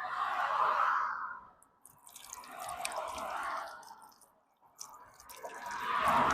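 Water pouring and splashing in three spells, each swelling for about a second or more, with small clicks and taps between.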